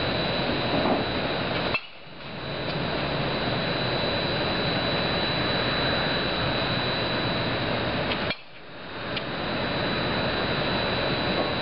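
Baseball bat striking pitched balls in a batting cage: two sharp knocks about six and a half seconds apart. After each knock the sound cuts out abruptly and fades back in over about a second. Between them there is a steady rushing noise with a faint high whine.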